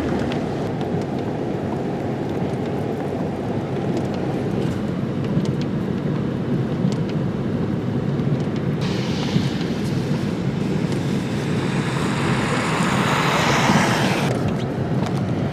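Vehicle on the move, heard from inside: a steady low rumble. About nine seconds in a louder hissing rush starts abruptly, then cuts off about five seconds later.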